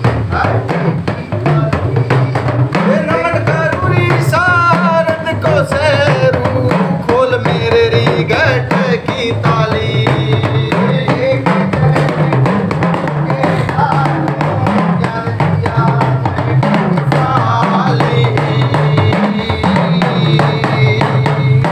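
Devotional bhajan played live: hand-struck barrel drums of the dholak kind keep up a fast, dense rhythm with deep low strokes, and a voice sings over them in two long stretches.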